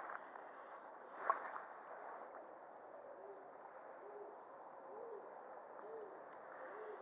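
A bird's low hooting calls: short, arched notes about one a second, starting about three seconds in, over the steady rush of a shallow stream. One sharp tick about a second in.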